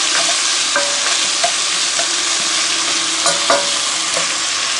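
Beef chunks sizzling steadily as they brown in a cast iron Dutch oven, stirred with a wooden spatula that scrapes and knocks lightly against the pot a few times.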